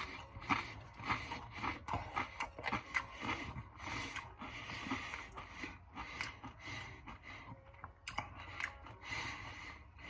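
A person chewing Doritos tortilla chips with a mouth close to the microphone: a stream of irregular crisp crunches.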